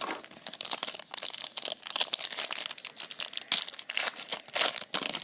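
A foil trading-card pack wrapper crinkling and tearing as it is handled and opened, a dense run of crackles.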